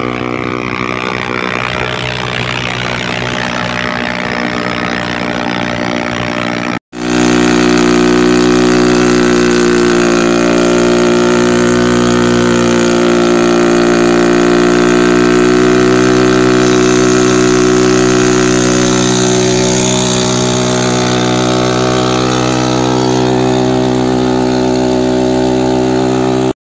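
Motorcycle engine held at high, steady revs while the rear tyre spins in a burnout. The sound cuts out for an instant about seven seconds in, then carries on a little louder and stops abruptly at the end.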